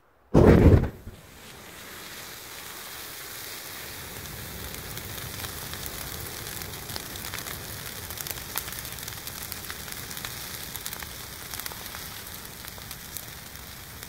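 A clump of dry reeds going up in fire: a brief loud burst about half a second in as it ignites, then a steady hiss of burning with many sharp crackles and pops, slowly building.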